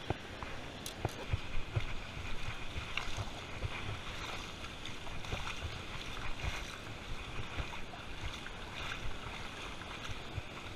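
Shallow river water sloshing close to the microphone as a caught bass is released by hand, with irregular low knocks from handling.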